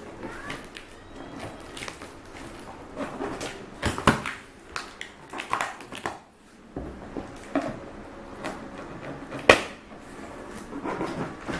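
A vegetable knife cutting and scraping through the packing tape of a cardboard box, with the carton handled and its flaps rustling. Sharp knocks come about four seconds in, and a louder one at about nine and a half seconds.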